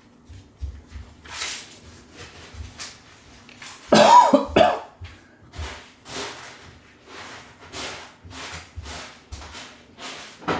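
A person coughing over and over in a long fit, the loudest, most throaty cough about four seconds in: a hay-fever cough brought on by pollen.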